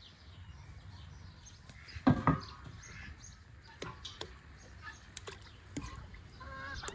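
Pieces of raw heart dropped into an enamel basin of water: two loud plops about two seconds in, then smaller splashes and drips.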